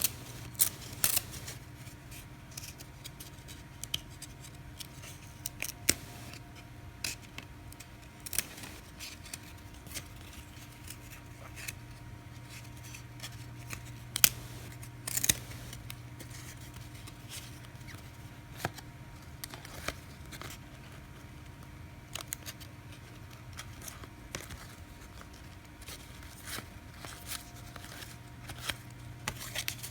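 1999 Skybox Thunder trading cards being handled and flipped through, giving irregular crisp snaps and ticks of card stock, several a second in places, over a steady low hum.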